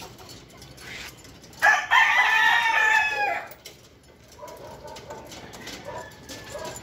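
A rooster crows once, loud, starting about one and a half seconds in and lasting about two seconds, its pitch sagging toward the end. Fainter short fowl calls follow near the end.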